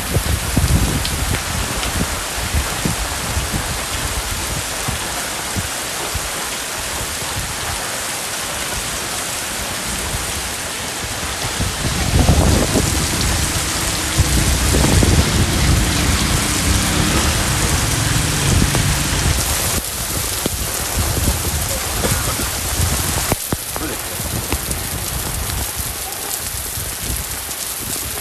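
Heavy rain falling steadily, a dense even hiss. About twelve seconds in a louder low rumble joins it for several seconds, then fades.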